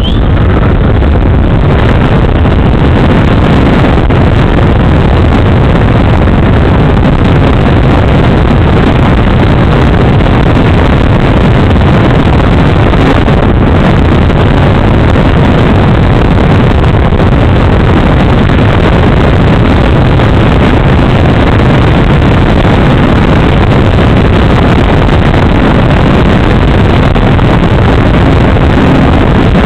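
Propeller and motor of a radio-controlled Super Cub model plane, heard from its onboard camera and buried under heavy wind rushing over the microphone as it takes off from the water and climbs. A steady loud rushing noise with no clear pitch.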